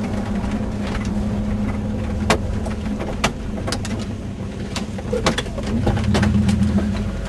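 Car engine and road noise heard from inside the cabin, a steady low hum, with a few sharp clicks or knocks scattered through it.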